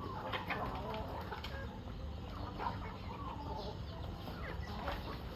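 A flock of chickens clucking, many short calls overlapping at feeding time.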